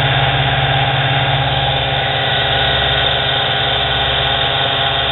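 Lathe running steadily at speed: the brushed electric motor and the new Gates drive belt turning the pulleys give an even mechanical drone.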